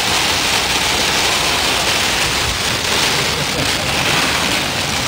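Heavy rain on a moving car, heard inside the cabin as a loud, steady rush of noise, with the car's road noise beneath it.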